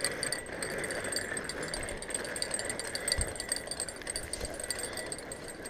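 Spinning reel being cranked to bring in a hooked fish, its gears rattling with a fast run of small ticks as the handle turns.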